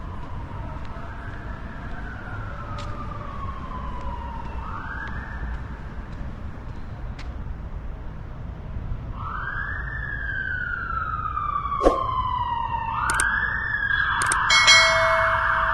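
Emergency vehicle siren wailing, rising quickly and falling slowly about every four seconds and getting louder as it approaches, then switching to a fast yelp near the end. A few sharp clicks come in its last seconds, over a low rumble of city traffic.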